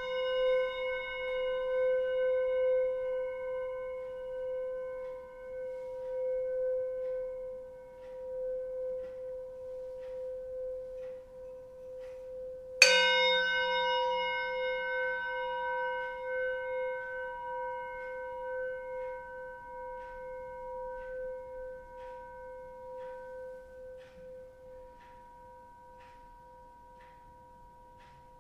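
Singing bowl ringing with a steady hum and a stack of overtones, its loudness pulsing slowly as it fades. About halfway through it is struck once with a wooden mallet, rings out loud again, and slowly dies away.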